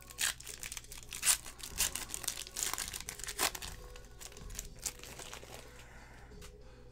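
Foil wrapper of a basketball trading-card pack crinkling and tearing as it is pulled open by hand, in dense crackles over the first few seconds that thin out toward the end.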